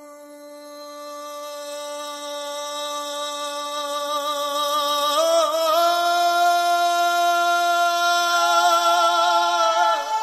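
A solo singing voice holds a long, unaccompanied opening note that swells from faint to loud. About halfway through it steps up in pitch with a wavering ornament, as in the slow opening of a Punjabi song.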